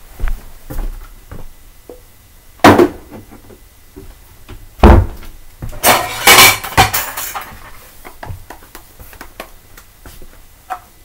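Dishes being handled and washed: scattered light knocks and clinks, with a loud clatter about three seconds in, another about five seconds in, and a burst of ringing clatter around six to seven seconds in.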